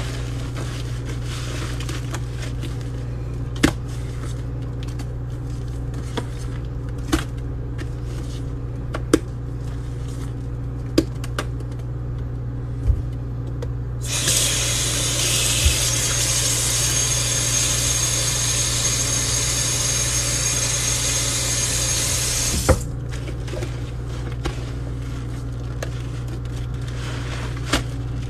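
Tap water running into a sink for about eight seconds in the middle, as a steady hiss that starts and stops abruptly. Before and after it, scattered soft clicks from hands scrubbing a sponge in foamy paste, over a steady low hum.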